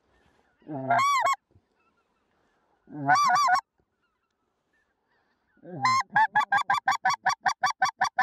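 Goose call blown by a hunter: two drawn-out honks, each breaking upward from a low moan, then a fast run of short clucks, about six a second, near the end.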